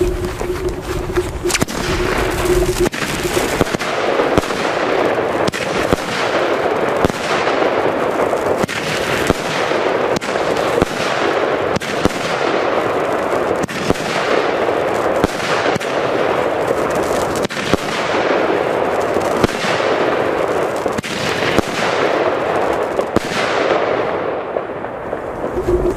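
Argento 'Akira' 13-shot fireworks cake with 30 mm tubes firing its shots one after another, roughly one every one and a half to two seconds, starting about three seconds in. Each shot is a sharp report, and the bursts of stars keep up a dense noise between the shots.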